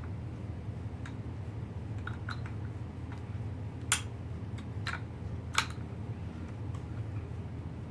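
Light clicks and taps of hard objects being handled, with two sharper clicks about four and five and a half seconds in, over a steady low hum.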